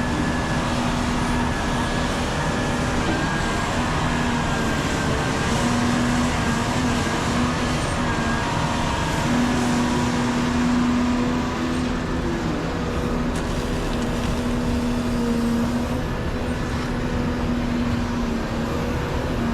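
Volvo EC550 excavator's diesel engine running steadily under working load while digging and loading, with a steady hum and whine that holds one pitch.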